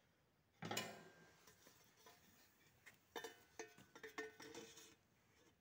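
Stainless steel flue pipe fittings clanking and clinking as they are handled: one sharp ringing knock about half a second in, then a run of lighter metal clinks and taps in the middle.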